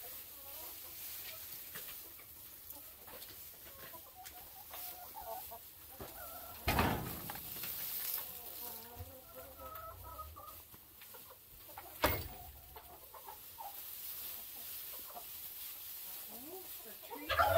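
Flock of hens clucking softly while straw is carried and spread, with a loud rustle of straw about seven seconds in and a sharp knock near twelve seconds. A louder bird call comes just before the end.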